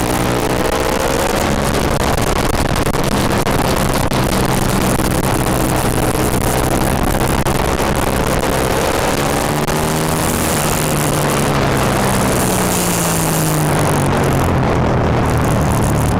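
Aprilia Tuono motorcycle's V-twin engine running hard at speed, its pitch falling and rising several times as it slows for corners and accelerates again, under a steady rush of noise.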